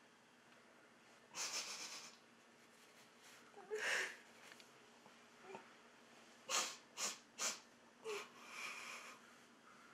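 A woman crying: sobbing, wheezy breaths and sniffs, with three quick sniffs in a row about two thirds of the way through.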